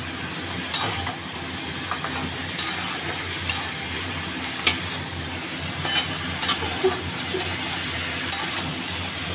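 Chicken and chopped vegetables sizzling in hot oil in a pan while a spatula stirs them, with sharp clicks of the spatula against the pan about once a second.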